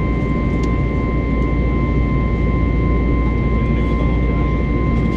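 Airliner cabin noise in flight: the steady rumble of the jet engines and airflow, with a steady high whine at two pitches on top.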